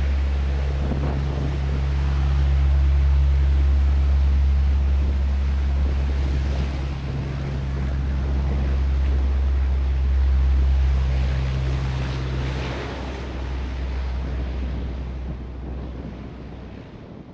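Four-engine Lockheed WP-3D Orion turboprop taxiing, its Allison T56 engines and propellers making a steady low drone with a rushing hiss above it. The drone fades toward the end as the aircraft moves on.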